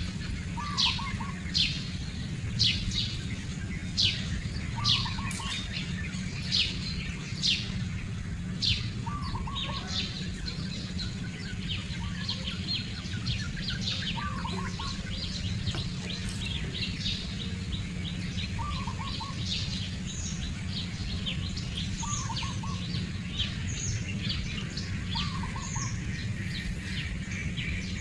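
Birds chirping: sharp falling chirps about once a second at first, then a denser chatter of calls, over a steady low rumble.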